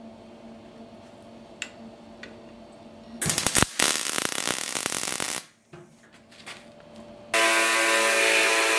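Electric arc welding: a loud, crackling arc lasting about two seconds, starting about three seconds in. Near the end a belt grinder takes over, running steadily with a few held tones as a small metal piece is ground on its belt.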